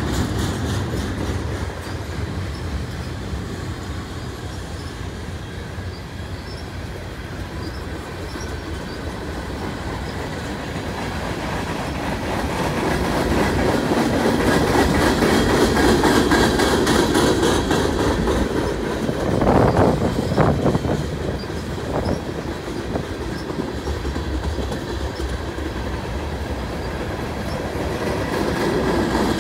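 Mixed freight train of centerbeam flatcars, tank cars and covered hoppers rolling past, steel wheels clacking over the rail joints, with a few louder knocks about two-thirds of the way through.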